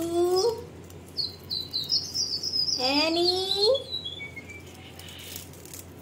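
Alexandrine parakeet calling: a rising, voice-like call at the start and another about three seconds in, with a run of short, high chirps between and after them.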